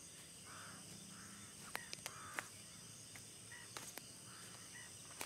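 Faint night ambience of crickets and other insects trilling steadily, with a few sharp clicks about two seconds in and again near four seconds.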